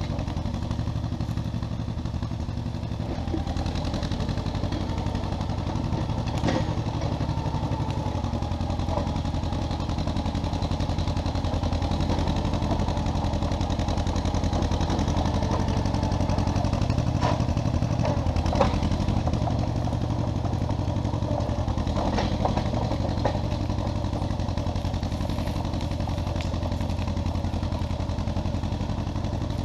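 1957 John Deere 420 crawler's two-cylinder gasoline engine running steadily, with a few sharp metallic clanks now and then.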